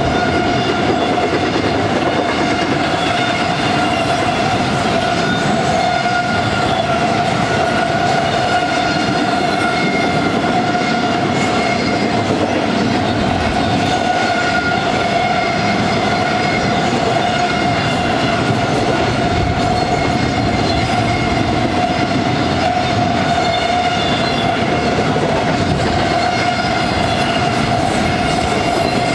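Double-stack intermodal freight train rolling past at close range: a steady, even rumble of steel wheels on rail from the container well cars, with a steady high whining tone over it.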